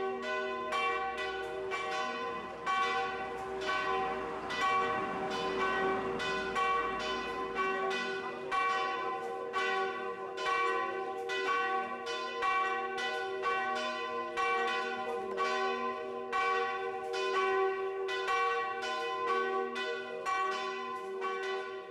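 Church bells ringing: a fast, even run of strikes, about three a second, over the steady hum of the bells' lingering tones.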